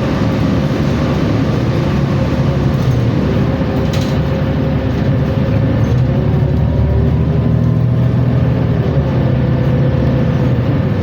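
New Flyer Xcelsior XN60 articulated bus running under way, its engine and drivetrain making a steady drone with a high whine on top: the odd transmission sound of this bus. The pitch rises a little partway through, as the bus picks up speed.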